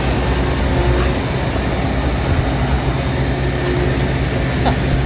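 Rice combine harvester engine running steadily under work: a constant low drone, with a thin steady high whine over it.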